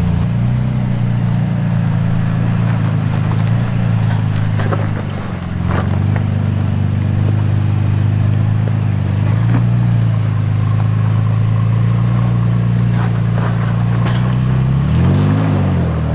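Toyota Tacoma's engine running at low, steady revs as the truck crawls over rocks, with occasional crunches and scrapes from the tyres on stone. Near the end the revs rise and fall.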